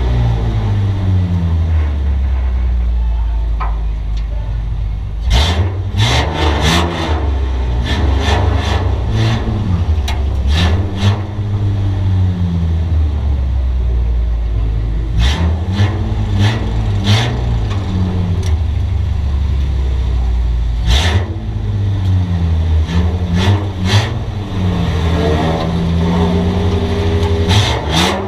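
Bomber-class stock car's engine heard from inside the stripped cabin, loud, repeatedly revving up and dropping back every few seconds as the car rolls at slow pace, with clusters of short sharp cracks.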